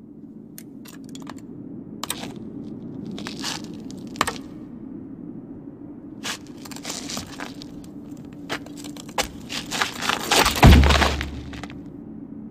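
Film sound effects of knitting needles digging into dry earth as someone hauls themselves up: a series of crunching cracks and scrapes, then a heavy thud near the end as a body drops onto the ground. A low steady drone runs underneath.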